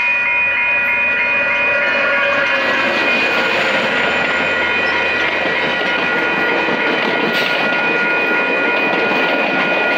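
A VIA Rail F40PH diesel locomotive and its stainless-steel passenger cars passing close by, with a steady rush of wheels on rail that builds a couple of seconds in. Over it the level-crossing warning bell keeps ringing.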